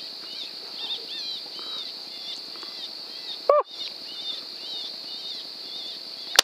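A single rifle shot near the end, one sharp crack and the loudest sound here. About three and a half seconds in comes a short, loud, rising squeak. Small bird chirps and a steady high hiss run underneath.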